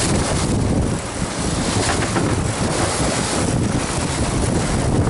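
Wind buffeting the microphone over the rush and splash of water along the hull of a boat moving through choppy sea, a steady heavy noise with a low rumble.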